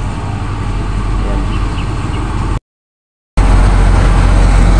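Steady low engine rumble of traffic or site machinery. It cuts out to total silence for under a second a little past halfway, then comes back louder.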